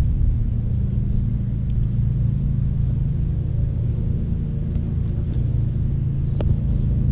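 Steady low hum of a running motor, with a few faint clicks about five and six seconds in.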